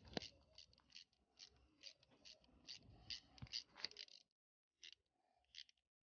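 Faint clicking of a socket ratchet as it is worked back and forth to tighten a bolt on the gear shifter mounting, about two clicks a second, pausing about four seconds in before a few more clicks.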